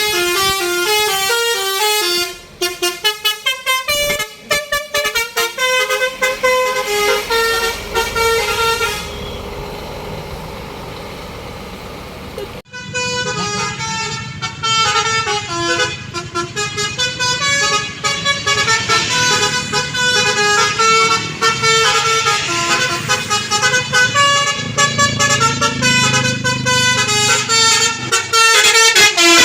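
Basuri multi-tone telolet horn on a bus playing a quick melody of stepped notes, which stops about nine seconds in, leaving quieter engine and road noise. After a sudden cut a few seconds later, a telolet horn melody plays again over a low engine rumble.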